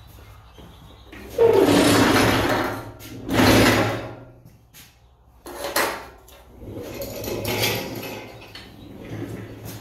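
A bench vise being slid and handled on a sheet-steel tabletop: four bursts of metal scraping and clunking, the first two longest and loudest. A steady low hum runs underneath.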